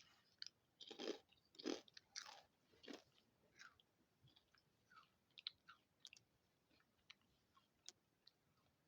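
Light, airy Goldfish Crisps being bitten and chewed close to the microphone. A few loud crunches come in the first three seconds, then softer, quicker crackles as the chewing goes on.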